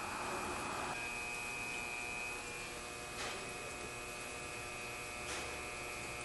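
Steady electrical hum over a faint even background noise, with two faint brief brushing sounds about three and five seconds in.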